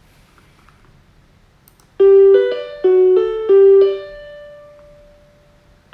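A short electric-piano-like melody: about seven quick notes, the last one held and fading away. The same phrase starts again near the end, as a repeating tune or ringtone would.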